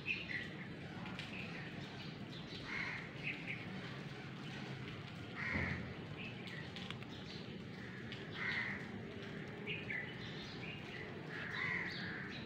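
Birds calling outdoors: short separate calls every second or two over a steady background of outdoor noise.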